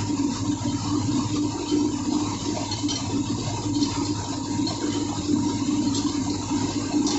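Steady hum and rush of running engine-room machinery, with a few faint short clicks.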